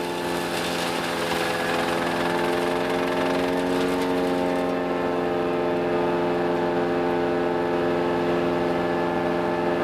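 Wood chipper running at speed, a steady pitched mechanical drone that dips slightly in pitch about four seconds in and then recovers.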